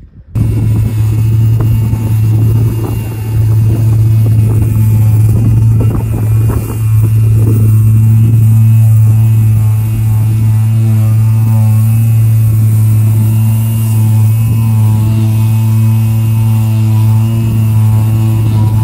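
Electric power sander running steadily as it is worked over the boat's deck, a loud constant motor hum that starts about a third of a second in.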